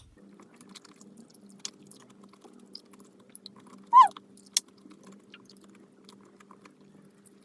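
Close-miked chewing and mouth clicks of a person eating a sticky rice cake with black bean filling, over a faint steady hum. About four seconds in comes a short, loud sound that falls in pitch.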